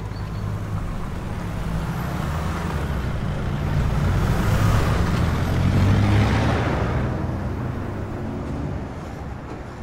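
Army trucks driving past, their engines giving a heavy low rumble that grows louder to a peak about five to six seconds in and then fades as they pass.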